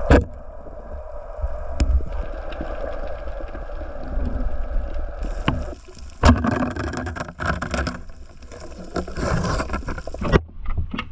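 Water splashing and sloshing around a small boat, loudest in the second half, with a few sharp knocks and a steady low rumble underneath.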